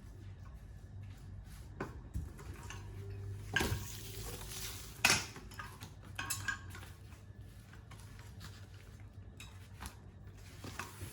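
Metal clinks and knocks from a meat slicer being handled, over a low steady hum, with the sharpest knocks near the middle.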